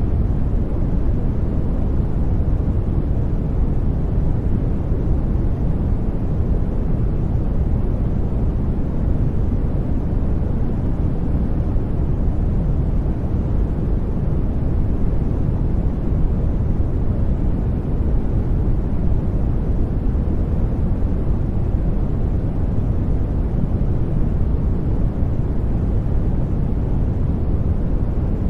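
Steady sleep noise: an even, unchanging rush, deep and rumbly rather than hissy, with little in the highs.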